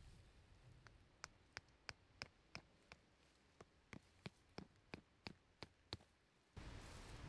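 Faint, evenly spaced ticking clicks, about three a second, which stop about six seconds in; a sudden rush of steady noise starts just after.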